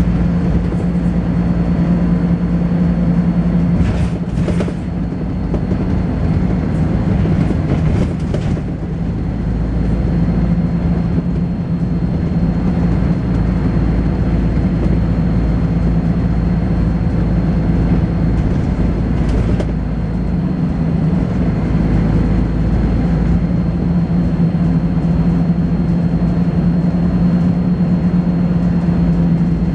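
Volvo B10BLE single-decker bus running, a steady heavy engine drone with rattly thrash and a thin, steady high-pitched whine over it. The sound dips briefly about three times.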